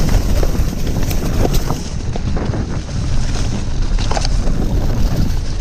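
Wind buffeting the microphone over a dense low rumble, with scattered clicks and rattles from an electric mountain bike riding over rough trail.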